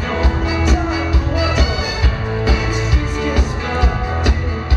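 Swedish dansband playing live through the PA: drums keeping a steady beat of about two hits a second under electric guitars and sustained notes.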